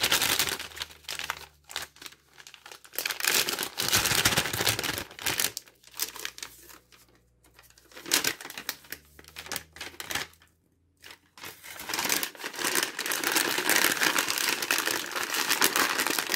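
Crinkling and rustling of MRE plastic packaging being handled, in bursts with short pauses, as the ration pouches are fitted into the flameless ration heater bag.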